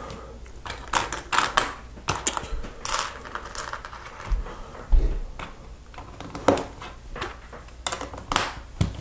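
Loose LEGO plastic pieces clicking and rattling as a hand picks through a pile of them and presses bricks onto a plate: a run of irregular small clicks and taps, with a duller knock about five seconds in.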